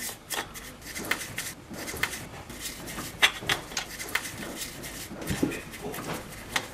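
A brush scrubbing paraffin into a shotgun's action over a metal pot of paraffin, giving a string of irregular clicks and taps of bristles and metal, with a sharper click about three seconds in.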